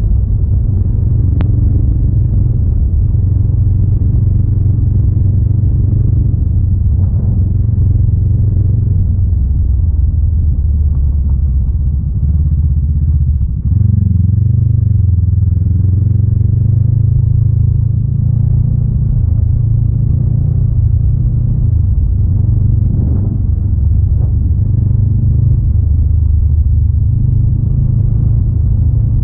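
Honda Rebel 500's parallel-twin engine running steadily while riding along. Its note dips briefly about halfway through, then picks up again.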